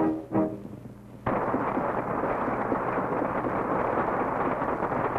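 The last two short notes of a brass fanfare, then a brief lull. Just over a second in, crackling applause from the assembled audience starts abruptly and keeps going steadily, on a worn early-1930s newsreel soundtrack.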